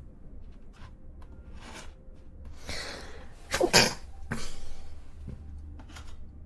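A young woman's wet allergy sneeze: a drawn-in breath builds up for about a second, then one sharp, loud sneeze a little past halfway, followed by a breathy out-breath.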